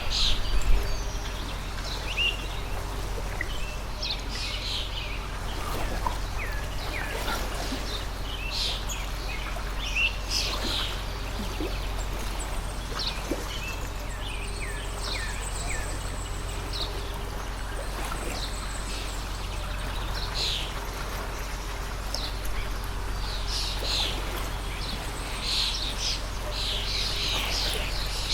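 Many small birds chirping and calling, short chirps coming thick throughout, over the steady rush of a flowing water stream.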